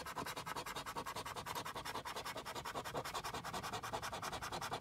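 A coin scratching the coating off a lottery scratch-off ticket in rapid, even back-and-forth strokes.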